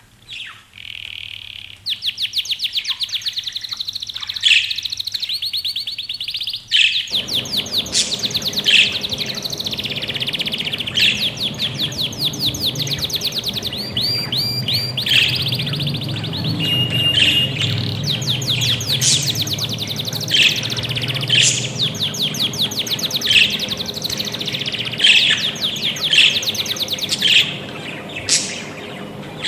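Budgerigars chirping and chattering: fast runs of short chirps, with louder single calls breaking in every second or two. A low steady hum joins in the background about a quarter of the way in.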